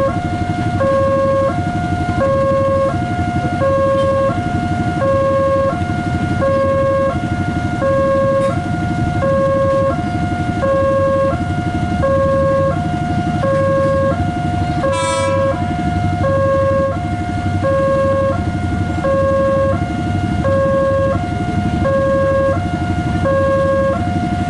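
Railway level-crossing warning alarm sounding a steady electronic two-tone hi-lo signal, each tone about three-quarters of a second long, over a low steady rumble. A brief sharp sound cuts in about two-thirds of the way through.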